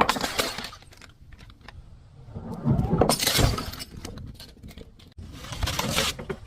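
Objects being broken and crushed: three separate bouts of shattering, crunching sound, each lasting about a second.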